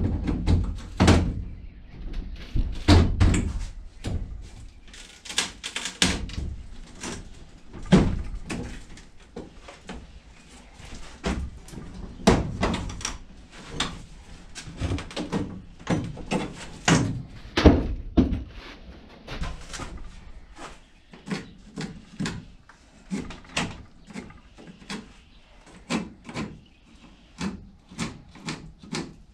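Irregular knocks, thuds and bangs of wooden wall studs being worked loose from a camper's wall framing. A few louder bangs stand out: about 3 s in, about 8 s in, about 12 s in and near 18 s.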